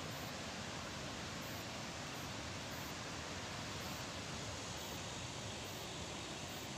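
Water rushing in a steady, even roar from a hydropower reservoir's open sluice gates during a flood release.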